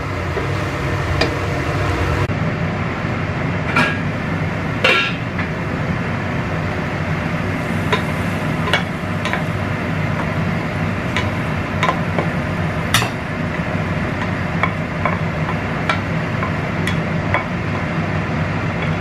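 Wooden spatula scraping and knocking against a stainless steel frying pan as a stir-fry of long beans is served out onto a ceramic plate: scattered sharp clicks and taps over a steady low hum.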